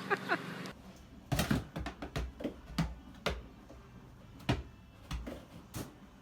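Scattered sharp knocks and clicks, about a dozen at irregular spacing. Before them, a quick run of short falling squeaks over a steady hum cuts off under a second in.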